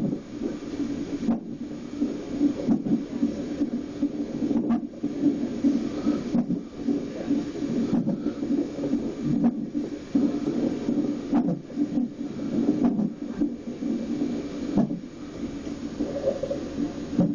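Fetal heart monitor's Doppler speaker during a non-stress test: the unborn baby's heartbeat whooshing steadily, broken by a sharp knock about every second and a half as the 34-week baby hiccups.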